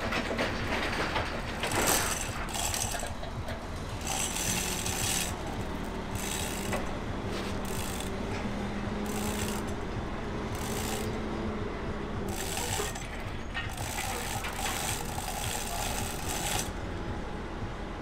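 Manual chain hoist being worked, its chain rattling and pawl ratcheting in repeated bursts, over a steady low hum.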